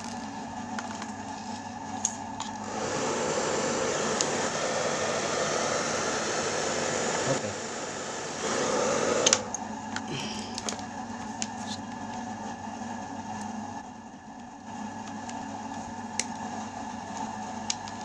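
Hair dryer switched on for a test run: its fan blows with a steady rush of air for about seven seconds, dips once partway, and stops with a click. Small handling clicks follow.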